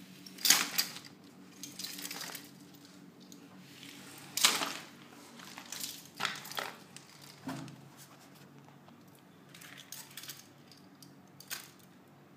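Irregular clicks, clacks and short rattles of plastic hairbands and beaded hair clips being handled on a homemade organizer stand, loudest about half a second and four and a half seconds in.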